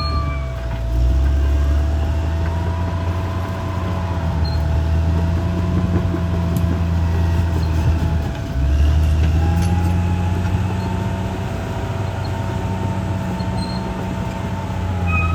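CAT D6R XL bulldozer's diesel engine running under load with a steady low drone, easing briefly about a second in and again past the middle before pulling back up.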